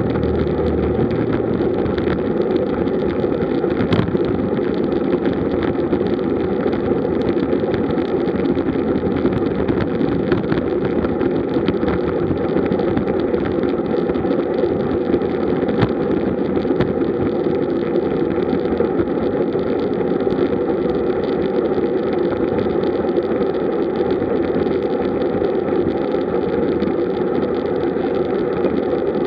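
Steady rush of wind on the microphone of a bicycle-mounted camera, mixed with tyre and road noise from road bikes riding in a group at around 35 to 39 km/h.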